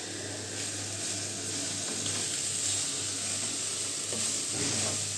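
Grated carrots frying and sizzling in ghee in a non-stick kadhai as sugar goes in, stirred with a wooden spatula that scrapes the pan a few times near the end.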